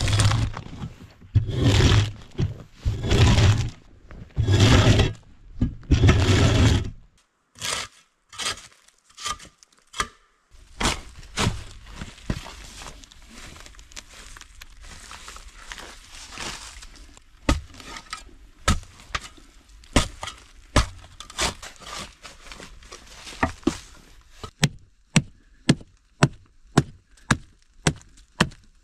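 Hand tools working wood: four long rasping strokes, then a run of sharp wooden knocks and cracks that settles into a steady beat of about two knocks a second near the end.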